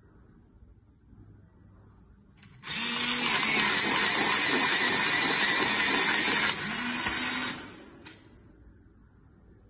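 AFMAT PSX6-9 electric pencil sharpener running, its blade grinding the wood and lead of a coloured pencil, a steady high-pitched whir that starts suddenly about two and a half seconds in, softens about a second before the end and stops about five seconds later.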